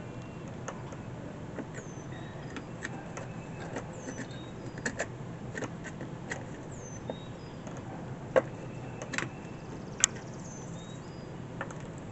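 Scattered light clicks and clinks of hand tools and parts being handled on the jet ski's pump housing, with a few sharper knocks about eight to ten seconds in, over a steady low background noise.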